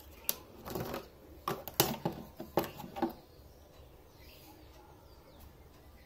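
Sharp clicks and knocks of hands and a tool working on a home theatre unit's casing to open it, a dozen or so in the first three seconds, then quiet.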